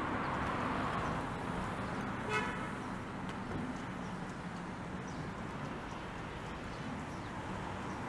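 Steady city street traffic, cars passing with a low engine hum, and one short car horn toot about two seconds in.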